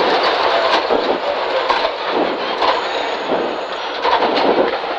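Rally car heard from inside the cabin: engine, drivetrain and road noise as the car brakes and changes down from fifth gear to first for a tight turn, the noise dipping about halfway through and picking up again near the end.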